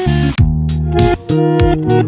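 Background music led by guitar, with bass and a steady drum beat.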